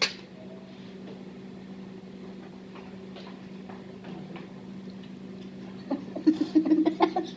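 A steady low hum fills the room, with faint clicks of hands and food. About six seconds in comes a short burst of loud, choppy voices, like laughter.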